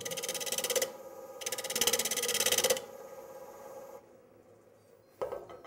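Carbide-tipped lathe chisel cutting a spinning wooden bowl blank: two cuts of scraping with a rapid regular pulse, the first under a second, the second about a second and a half. A single knock near the end.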